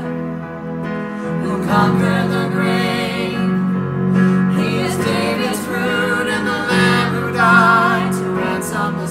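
Two women and a man singing a slow worship song in harmony over instrumental accompaniment, with a brief breath between phrases about a second and a half in.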